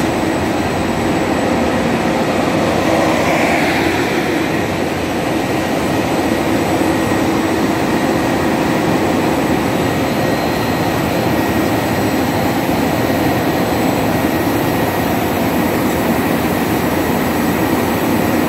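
BOBST flexo printing press running at speed: a dense, even machine noise with a faint high whine and a low hum, unchanging throughout.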